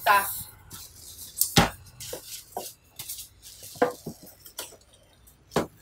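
Unpacking handling sounds: a plastic-bagged mini welding machine with foam packing blocks rustling and knocking against a wooden counter, in a few irregular knocks, the loudest about a second and a half in.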